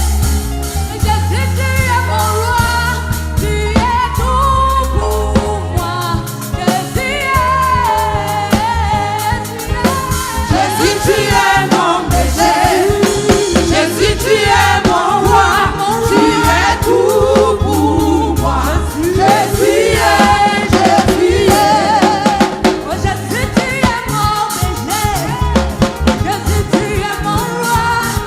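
Upbeat gospel praise song: voices singing over a drum kit and a heavy bass line.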